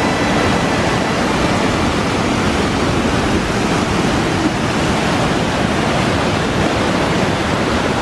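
Loud, steady rushing of water from a fast spring-fed mountain stream tumbling over mossy rocks and the waterfall feeding it.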